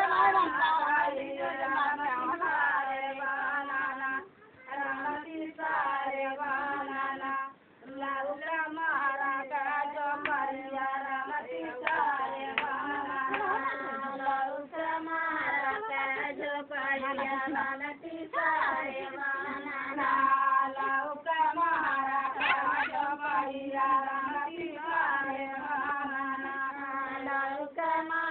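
High female voices singing a folk song together, with hands clapping along. The singing breaks off briefly twice, about four and seven and a half seconds in.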